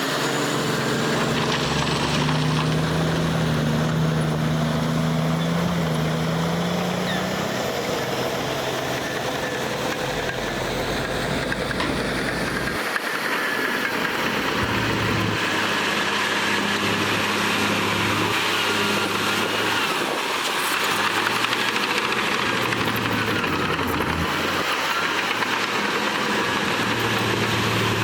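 Diesel engines of heavy earthmoving machinery, bulldozers and a dump truck, running steadily under constant noise, with their engine pitch shifting as they work; the pitch drops about a dozen seconds in.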